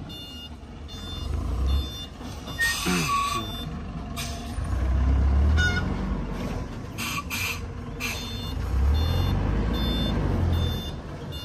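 Loaded dump truck reversing, its reversing alarm sounding over and over above the diesel engine running. A couple of short hisses come about three seconds in and again about seven seconds in.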